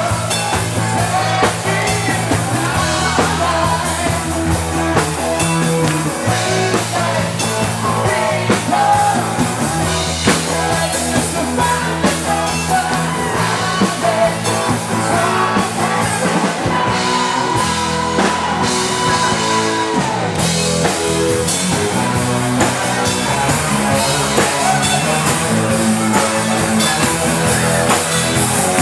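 Loud rock music with a steady drum-kit beat, guitar and singing, with one long held note about two-thirds of the way through.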